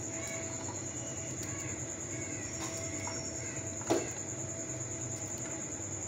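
Kitchen knife cutting cluster beans into short pieces over a plate: faint clicks of the blade through the pods, with one sharper knock about four seconds in, over a steady background hum.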